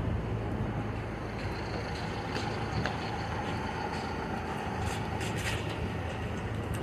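City street traffic noise: a steady rumble of motor vehicles with a low hum, and a few short clicks from about two seconds in.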